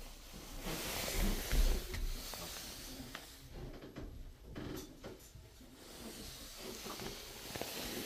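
Rustling and handling noise on a hand-held phone's microphone, with a low rumble early on and a few light clicks about halfway through.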